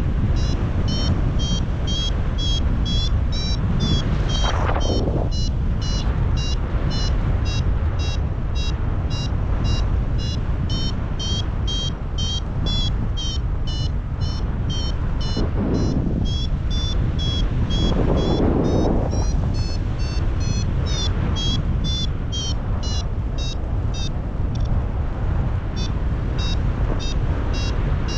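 Paragliding variometer beeping quickly, about three short high beeps a second with the pitch shifting slightly, the climb tone that signals the glider is rising in lift. Steady wind noise on the microphone throughout, with a few stronger gusts.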